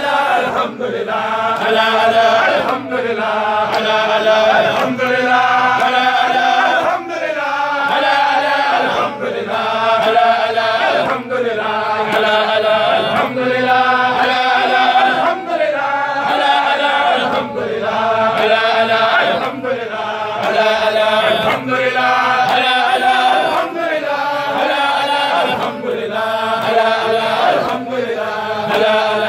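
A group of men chanting Sufi dhikr together, repeating a short held phrase about every two seconds without pause.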